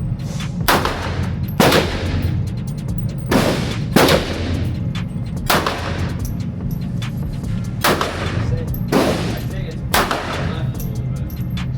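Pistol shots at an indoor range, about eight of them fired one every second or two, each with a short echo, over a steady low hum.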